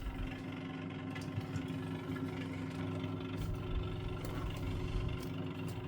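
1970s Pifco Spinair 8-inch desk fan running, its electric motor giving a steady hum that sounds a bit knackered even after the motor was oiled and rewired.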